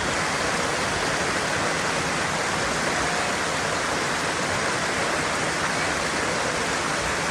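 Tiered waterfall cascading into a pool: a steady, even rush of falling water.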